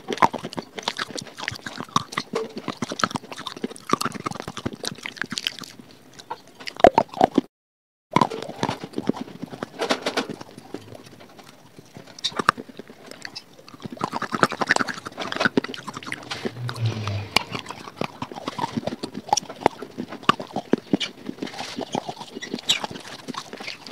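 Pieces of baked clay being bitten and chewed right at a clip-on microphone: dense, irregular crunching and crackling. The sound drops out completely for about half a second a third of the way in.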